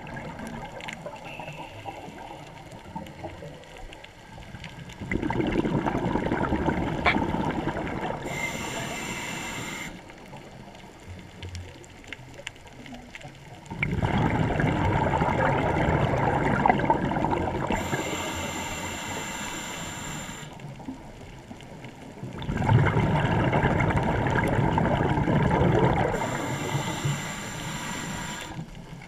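Underwater sound picked up by a camera held below the surface: a rushing water noise swells up three times, about every eight to nine seconds, fades over a few seconds each time, and is followed each time by a short stretch of high hiss.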